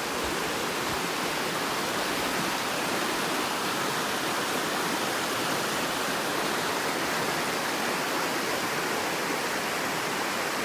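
Steady rush of water cascading over rocks in a small mountain waterfall, an even, unbroken roar.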